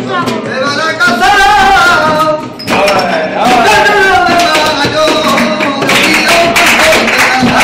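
Live flamenco: a voice sings two long, wavering phrases over a strummed Spanish guitar, and the strumming grows louder and denser near the end.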